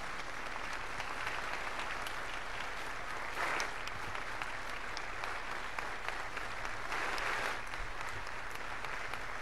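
Large audience applauding steadily, with the clapping swelling briefly twice, about three and a half seconds in and about seven seconds in.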